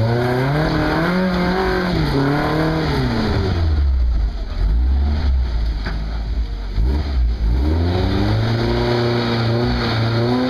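Lifted Toyota pickup's engine revving hard as it crawls through a deep rut, the pitch climbing and then falling away twice. Between the two pushes it drops back to a low rumble.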